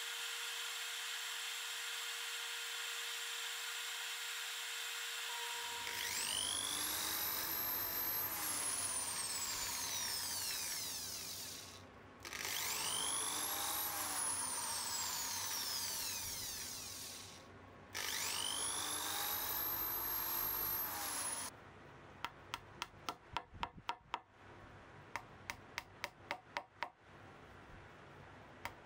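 A gravity-feed spray gun hisses steadily as it sprays clear lacquer over a bass neck. Then a drill runs three times, each time spinning up to speed and winding down, as it drills out the stripped screw holes in the bass body. Near the end comes a run of sharp taps in quick groups as wooden plugs are set into the holes.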